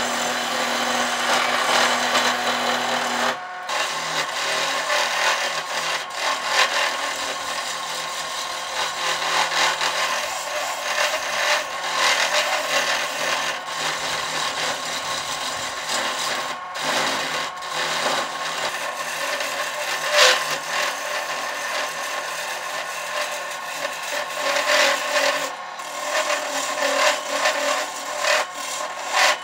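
Wood being shaped on a lathe: a steady scraping, rubbing noise of a tool working against the spinning wooden bat blank. There is a brief break about three and a half seconds in.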